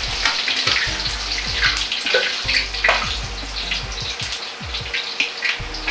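Hot frying oil draining from deep-fried shrimp, squid and vegetables held in a perforated wok strainer, running and dripping back into the carbon-steel wok, with light metal clicks of the ladle against the strainer.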